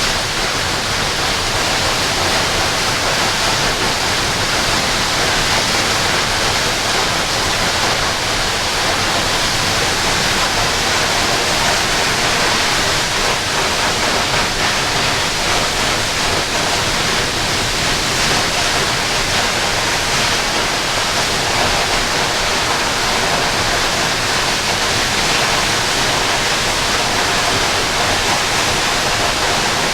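Waterfall rushing and splashing, a loud, steady roar of falling water that doesn't change.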